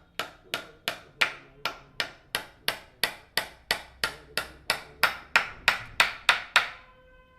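A hammer striking repeatedly and evenly, about three blows a second and a little faster toward the end, some twenty blows in all. Near the end the blows stop and a steady pitched tone sounds briefly.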